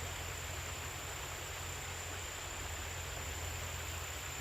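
Creek water running steadily: an even rushing flow, with a low steady hum underneath.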